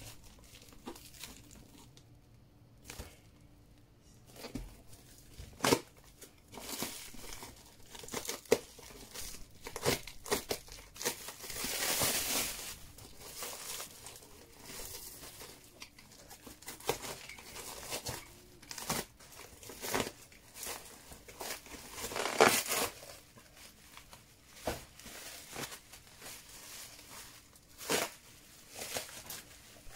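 A sealed bulb box and its wrapping being opened by hand: crinkling and tearing of the packaging, with scattered taps and clicks from handling the box. There are two longer crinkling stretches, about twelve and twenty-two seconds in.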